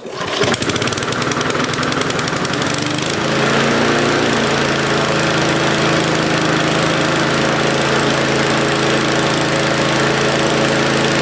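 Mountfield SV150 single-cylinder petrol lawnmower engine starting on choke and running fast and steady. Its note changes and it gets a little louder about three seconds in. It runs too fast, because the idle-speed screw is screwed all the way in.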